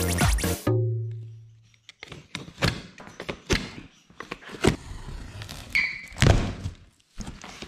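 Electronic music ending about a second in, its last low note fading away. Then a cardboard shipping box being slit open with a utility knife and its flap pulled at: irregular scrapes, taps and thunks on the cardboard.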